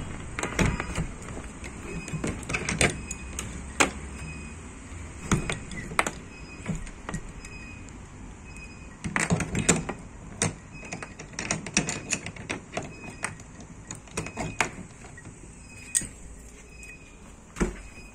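A padlock and a metal barrel-bolt latch being handled: irregular sharp metal clicks and clanks, some in quick clusters.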